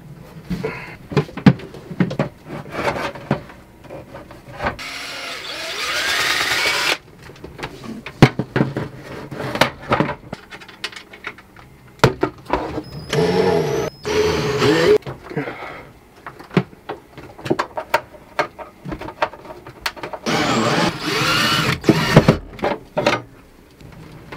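Power drill running in three spells of about two seconds each, drilling holes or driving screws to mount an inverter/charger to the locker wall. Between the runs come many sharp clicks and knocks of hardware and tools being handled.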